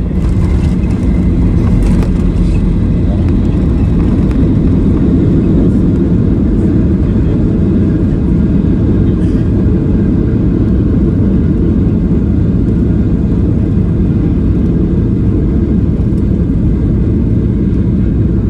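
Boeing 737-800 cabin noise from a rear window seat: a loud, steady rumble of the engines and passing air, with a few brief rattles in the first couple of seconds.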